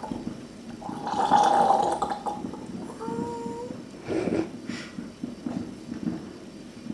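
Fireworks display going off: a long crackling swell about a second in, then a few sharp pops about four seconds in.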